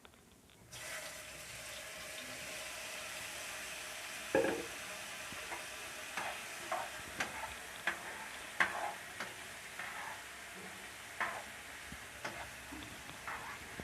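Marinated paneer cubes sizzling in hot oil in a pan, the steady sizzle starting within the first second. Light knocks and clinks in the pan come every second or so.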